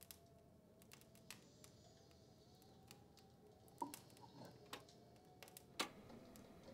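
Near silence: a faint, slowly wavering held tone with scattered soft clicks and ticks, the sharpest about four and six seconds in.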